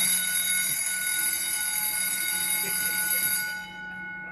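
Fire alarm bell ringing loudly, starting suddenly and holding steady for about three and a half seconds, then stopping and ringing down, with a couple of its tones lingering faintly.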